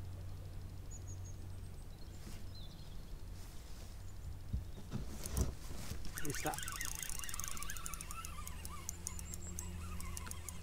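Fishing reel clicking rapidly as a zander that has just struck is played, with a thump about five and a half seconds in and some falling high notes over the clicking.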